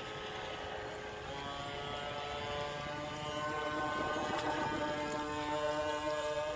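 Sterling Models 1/8-scale wooden Racing Runabout R/C boat under way, its motor giving a steady whine that grows louder as the boat passes close, about four seconds in.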